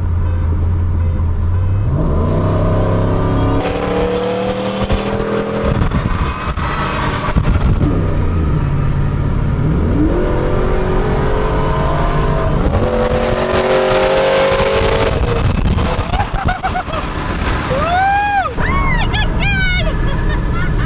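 V8 pickup truck engine accelerating hard from a rolling start. The revs climb, drop back at each upshift and climb again several times, then ease off near the end.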